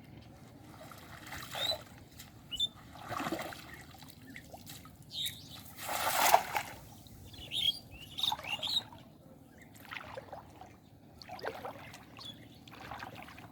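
Water splashing and trickling in shallow floodwater: a run of separate splashes, the biggest about six seconds in, with birds chirping briefly.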